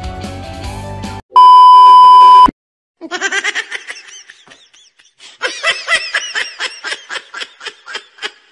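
Background music cuts off about a second in and a loud steady beep follows for about a second, like a censor bleep. After a moment of silence come two runs of quick, high-pitched laughter, typical of an editing sound effect.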